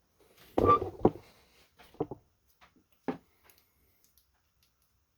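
Handling noise of a lock and tools on a work surface: a short clatter of knocks about half a second in, the loudest, then two more single knocks about a second apart.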